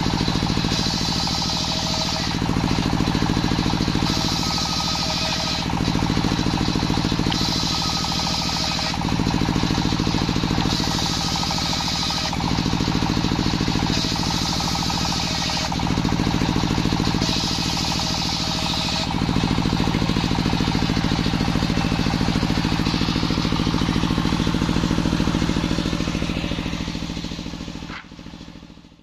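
Engine-driven table circular saw running steadily while waru (sea hibiscus) wood is fed through the blade: a higher cutting whine rises over the drone about every three seconds, six times. The sound fades out near the end.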